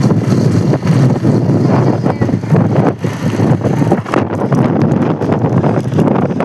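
Wind buffeting the microphone on a moving motorbike: a loud, gusty rumble over the ride noise.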